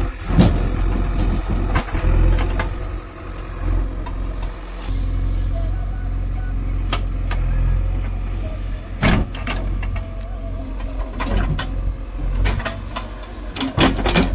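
Heavy diesel earth-moving machinery running steadily with a deep low rumble, overlaid with irregular sharp clanks and knocks, the loudest about nine seconds in.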